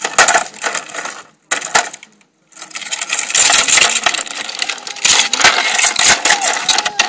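Plastic toy dump truck pushed over sandy paving stones, its hard plastic wheels and body scraping and rattling on the grit. It comes in short bursts with gaps over the first two and a half seconds, then runs almost without a break.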